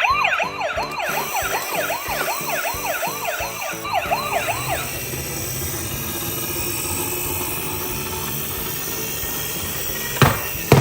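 Toy ambulance siren sounding a fast rising-and-falling yelp, about two and a half sweeps a second. It stops about five seconds in and gives way to a steady rushing noise. A sharp click comes near the end.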